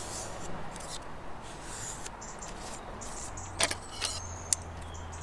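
Paper card being handled and folded, with soft rustling, then a few sharp clicks in the second half as a pair of scissors is picked up and its blades opened.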